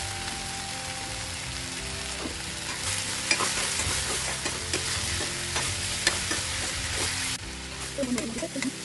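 Malabar spinach and potatoes sizzling steadily in a kadai, with a metal spatula stirring and clicking and scraping against the pan from about three seconds in.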